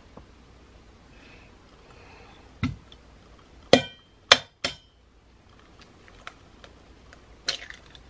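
A stainless steel mixing bowl knocked and clinked: one knock, then three sharp ones near the middle, two of them ringing briefly. Near the end comes a quicker crack as an egg is broken on the bowl's rim.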